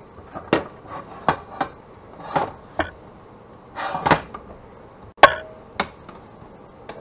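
Kitchen things being handled at a griddle: a plastic tub, a plate and plastic spatulas being set down and picked up, giving a string of separate light knocks and clatters. The loudest clack comes a little past five seconds, with a brief ring after it.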